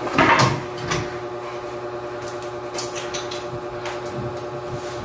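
Corded electric drill running steadily at one pitch, drilling overhead into a ceiling panel's framing for a rivet, with a couple of knocks as the bit goes in.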